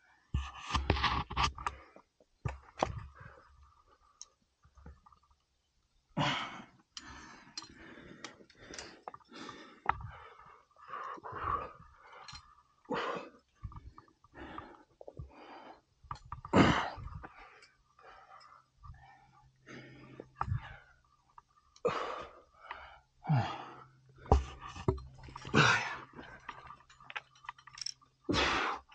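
A rock climber breathing hard while climbing: short, forceful breaths at irregular intervals, one every second or two, the strongest about midway through.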